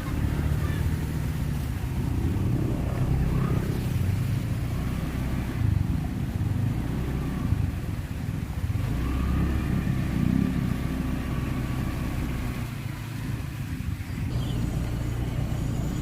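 A motor vehicle engine running steadily, its low hum swelling and easing a little.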